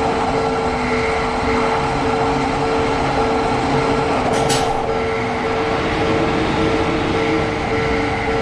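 Japanese railroad-crossing warning bell ringing in a steady repeating pattern while a train runs past with a continuous rumble. A brief high hiss comes about four and a half seconds in.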